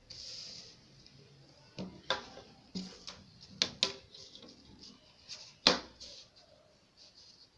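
Paper being handled and a clear plastic ruler laid down and positioned on a paper pattern over a wooden table. A short rustle right at the start, then a string of sharp taps and clicks, the loudest a little before the end.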